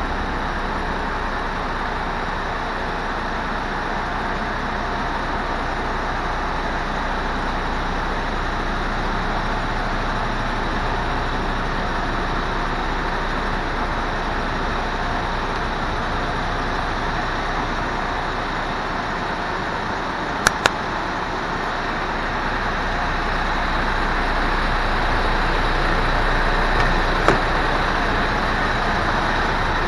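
The MAN TGX's 480 bhp turbo diesel engine idling steadily, growing a little louder toward the end. There are two sharp clicks about two-thirds of the way in and another near the end.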